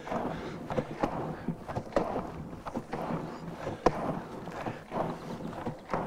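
Fresh cream sloshing inside a hanging wooden butter churn (yayık) as it is swung back and forth by hand, swelling with each swing about once a second, with light knocks. The cream is still liquid, before it sets into butter and the sound changes.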